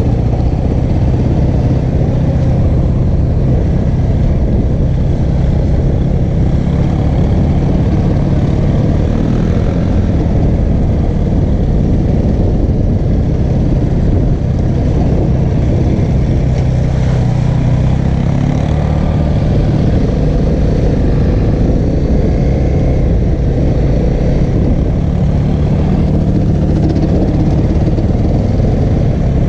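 Honda CRF250L's single-cylinder four-stroke engine running steadily under way at low trail speed, its pitch drifting up and down a little with the throttle over a dense low rumble.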